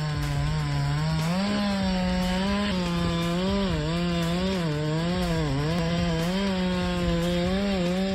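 Chainsaw engine running at high revs while cutting, its pitch dipping and rising again and again.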